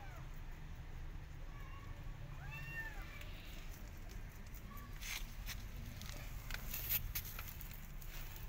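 A kitten meows twice in high, rising-and-falling calls, the second the clearer. About five seconds in, a run of sharp clicks and rustles follows.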